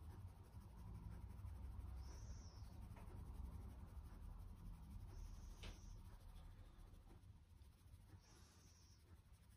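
Very faint, soft scratchy brushes of a small wire-mesh sieve being shaken and tapped to dust cocoa powder, a few times, with one sharper tick about halfway, over a low background hum.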